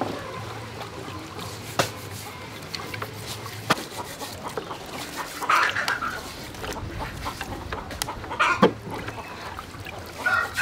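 Scattered knocks and clicks as sweet potatoes are handled and peeled over metal bowls, with two short chicken calls about five and a half and eight and a half seconds in.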